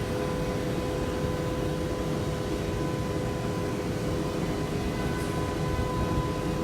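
Lihwoei CNC woodworking machine running steadily: an even machine noise with a constant whine.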